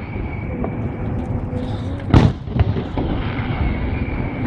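Fireworks display: one loud firework shell bursting about two seconds in, with fainter pops and crackles around it.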